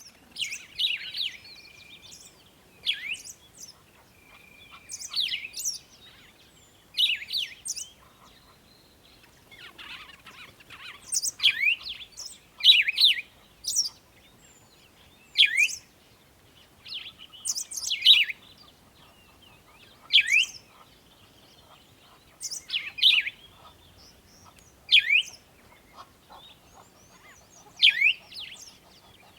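Birds singing: short, high phrases of quick sweeping notes, repeating about every two seconds, now and then with a brief held whistle.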